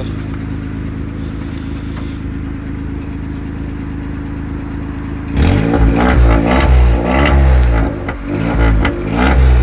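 Small 1000 cc car engine with a modified sport exhaust idling steadily. About halfway through it is revved up and down several times.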